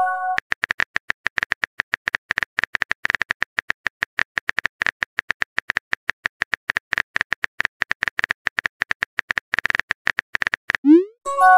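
Simulated phone-keyboard typing sounds: a rapid run of short clicks, roughly eight to ten a second. A short chime of several steady tones ends just as the clicks begin. Near the end, a rising swoop and another chime sound, the message-sent alert.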